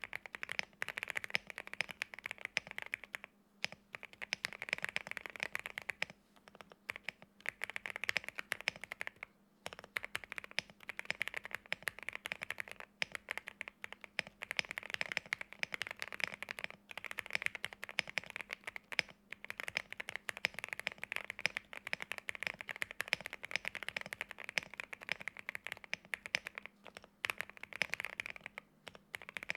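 Fast typing on a Qwertykeys QK65 mechanical keyboard with lubed Gateron Oil King linear switches, a POM plate and PBT keycaps, foam-filled and tape-modded: a dense stream of keystroke clacks with a few short pauses.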